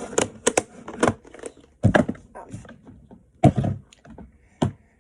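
Handling noise: a string of sharp clicks and knocks as objects are picked up and set down, with heavier thuds about two seconds in and again about three and a half seconds in.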